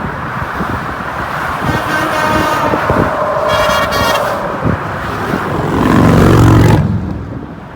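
Semi-truck horn honking over road noise: shorter, higher-pitched blasts about two and four seconds in, then a loud, low air-horn blast near six seconds that cuts off sharply, the Freightliner Cascadia answering a request to honk.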